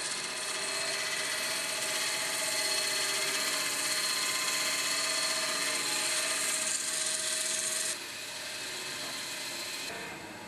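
EXAKT 312 diamond band saw running, its diamond-coated band grinding through a fresh bone and tissue specimen with a steady whirring hiss. The sound drops in level about eight seconds in.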